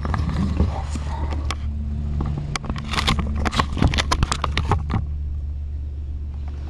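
Clicks, crackles and scrapes of things being handled close to the microphone, thickest in the middle and stopping about five seconds in, over a steady low hum.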